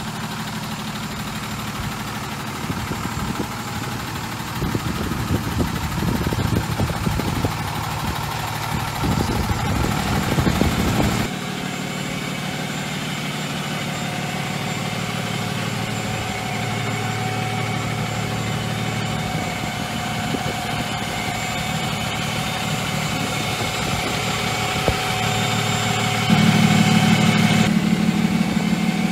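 A Freightliner M2's 6.7L Cummins inline-six diesel running at a steady idle. For the first ten seconds or so an uneven rushing noise sits over it and then cuts off suddenly. Near the end the engine note steps up and gets louder.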